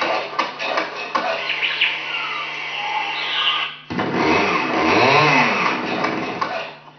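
Layered electronic sound collage from a live audio mix: short chirp-like sounds over a dense mechanical noise, cutting abruptly about four seconds in to a machine sound whose pitch sweeps up and down.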